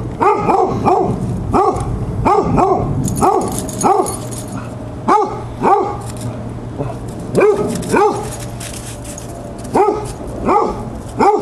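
Hound barks in play: a run of short barks, each rising then falling in pitch, about two a second, with a pause of about two seconds past the middle. The barking comes from basset hounds and a beagle.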